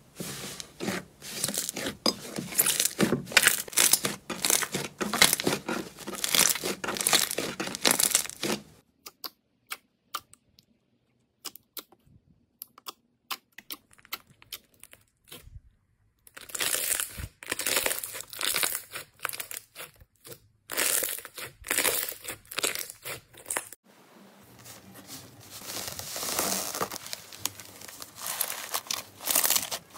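Hands pressing, squeezing and stretching slime, with dense crackling and popping. About nine seconds in it drops to a quieter stretch of sparse small squishes, and the crackling returns around sixteen seconds. Toward the end, the paper name labels covering a slime crinkle under the fingers.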